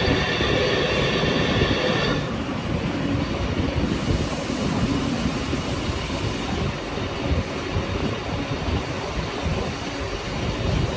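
CNC lathe running a test cut: a steady high-pitched whine with several tones for about the first two seconds stops abruptly, leaving irregular low rumbling machining noise.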